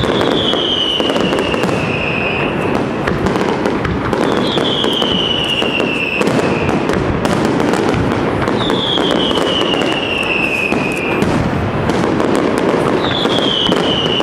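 Aerial fireworks display: a continuous dense crackling and popping of bursting shells and fountains. Over it, a high whistle falling in pitch, each lasting about two seconds, comes four times at roughly four-second intervals.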